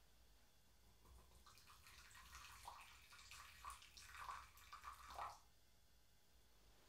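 Hot water poured slowly from a bamboo tea ladle (hishaku) into a ceramic tea bowl, a soft uneven trickle and splashing that starts about a second in and stops after about four seconds.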